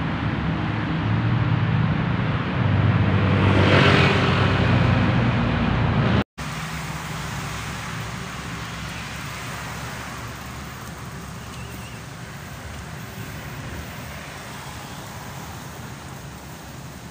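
Road traffic noise: a vehicle engine passes close by, loudest about four seconds in. After a sudden break, a quieter steady traffic hum continues.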